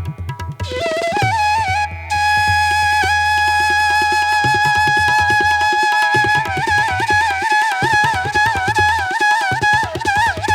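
Background music in Indian classical style: a flute melody with bends and ornaments over a steady low drone and tabla-like hand drum strokes.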